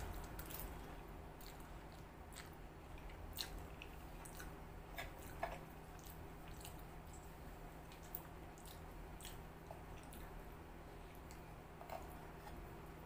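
A person chewing a mouthful of egg chow mein noodles, with soft wet smacks and clicks now and then over a steady low hum.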